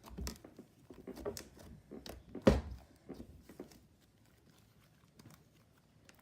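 Matte cornstarch slime being kneaded and squished by hand to mix in paint: irregular soft squishes and clicks, one louder pop about two and a half seconds in, then quieter after about four seconds.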